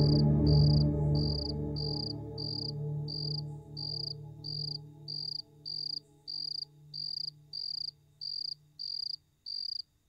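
A cricket chirping steadily, about two short high chirps a second, as night ambience. Under it a low sustained music tone fades out over the first half.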